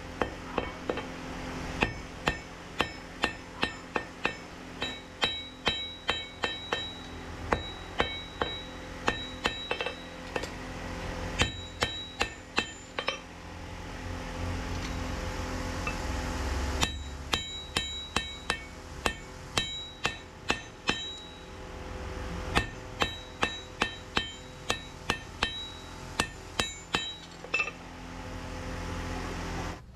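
Hand hammer forging a hot Damascus steel blade on an anvil: runs of sharp, ringing blows at about two to three a second, broken by a few pauses.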